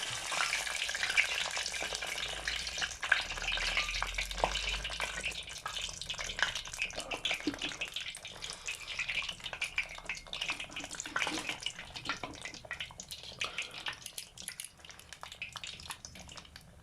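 Frozen croquettes frying in 170 °C oil in a tempura pot. They sizzle with dense crackling and popping that gradually dies down.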